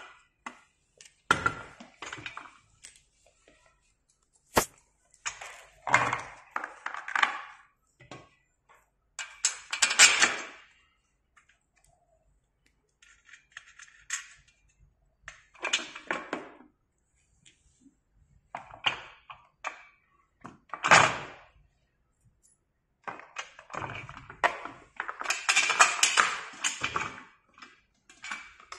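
Small metal parts handled during assembly: hex screws, washers and tools clinking, rattling and scraping in irregular bursts, with a sharp click about four and a half seconds in.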